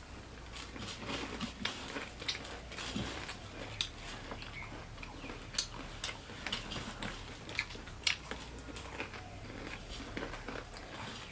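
People crunching and chewing mouthfuls of dry bhujia, a crisp fried gram-flour noodle snack, with a stream of irregular, sharp crackles.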